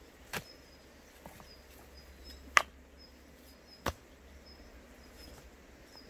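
Stones knocking against one another as they are handled and set in place: three sharp knocks, the one near the middle the loudest, with a few lighter clicks between.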